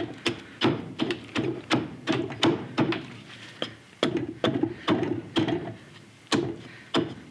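Quick, light chopping blows of an edge tool into green sycamore wood, about two to three knocks a second with a brief pause near the end.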